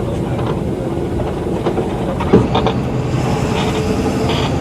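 Volkswagen Volksbus 17.230 EOD bus engine running steadily as the bus drives, with body and chassis rattling and one sharp knock about halfway through.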